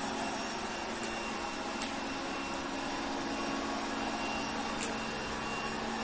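iLife X785 robot vacuum running in spot mode, circling in place: a steady motor and suction hum with a low steady tone, and a few faint ticks.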